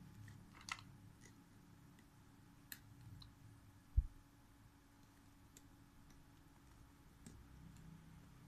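A few faint, scattered metallic clicks of snap-ring pliers working the retaining ring on an air impact wrench's anvil, with one dull low thump about four seconds in.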